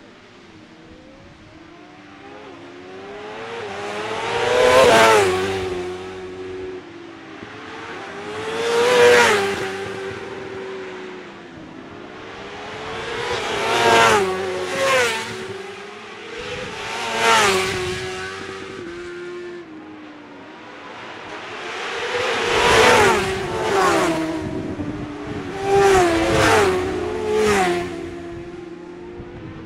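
Racing superbikes passing one after another, about ten in all, some close together in pairs and threes. Each engine note rises as the bike accelerates hard out of the bend and drops as it goes by.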